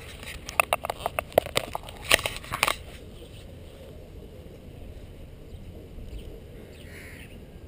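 Camera being handled and repositioned: a quick irregular run of sharp knocks and clicks during the first three seconds, then steady low wind noise on the microphone.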